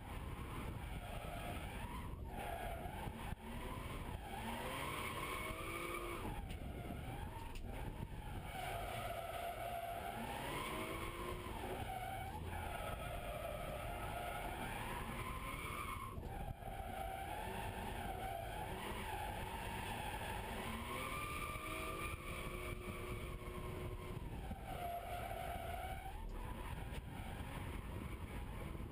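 BMW E36 M3's straight-six engine revving up and falling back again and again through a drift, heard from inside the cabin, with the tyres skidding.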